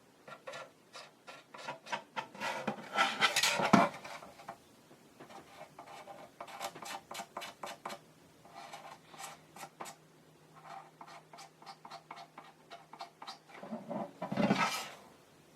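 Small hand tools and plastic model parts being handled on a workbench: many light clicks and taps, with two louder scraping bursts, one about three to four seconds in and one near the end.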